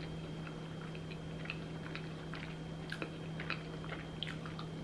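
A person chewing a mouthful of breaded vegan buffalo wing: soft, irregular wet clicks of chewing, over a faint steady hum.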